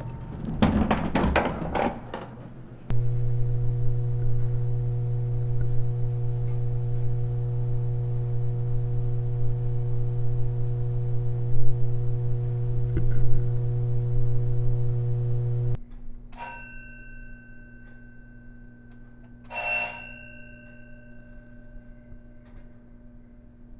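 Elevator: a clatter of door and mechanism knocks, then the steady electric hum of the drive with a few clunks while the car travels, cutting off suddenly after about 13 seconds. Two short ringing tones follow a few seconds apart.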